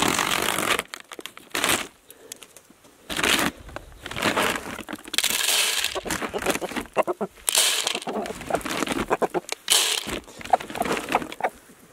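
Rustling and crunching from a bag of chicken feed and its pellets being handled, in about half a dozen short bursts with quieter gaps between.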